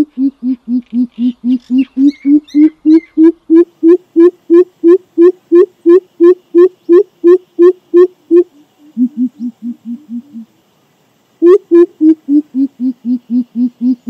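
Greater coucal (crow pheasant) giving its deep hooting call: a long run of low 'poop' notes, about three a second. A few softer, lower notes trail off past the middle, and after a brief pause a new loud run begins.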